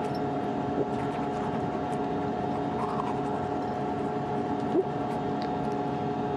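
Steady hum of the International Space Station's cabin fans and equipment, with several steady tones. Over it comes faint toothbrush scrubbing, and a brief rising tone about three-quarters of the way through.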